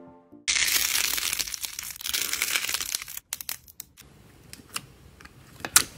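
Slime being squeezed and pressed close to the microphone: a dense crackling for about three seconds, then softer scattered clicks and pops with a sharp snap near the end.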